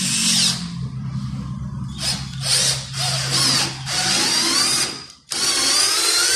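A cordless 12-volt drill driver drives a long 5 x 70 wood screw into melamine-faced particleboard, in several stop-start runs with a rising whine near the middle and the end. The screw is hard to drive, and the head does not go fully in.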